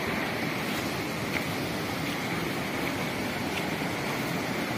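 Steady rushing outdoor noise with no distinct events, only a faint tick about a second and a half in.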